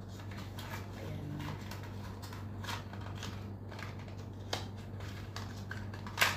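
Small cardboard box of wired earphones being opened by hand: light rustles, scrapes and clicks of the cardboard and plastic packaging, with a sharper click about four and a half seconds in and the loudest snap near the end. A steady low hum runs underneath.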